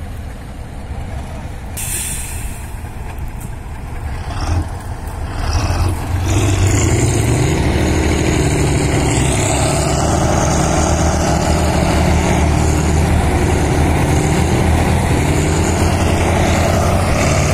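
Kirovets K-701 tractor diesel engine running, growing louder about six seconds in and then holding steady. A brief hiss of air comes about two seconds in.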